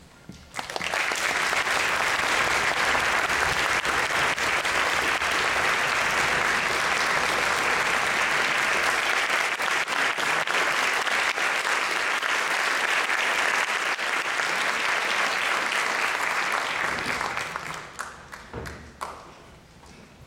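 Audience applauding, starting abruptly about a second in, holding steady and dense, then dying away a couple of seconds before the end.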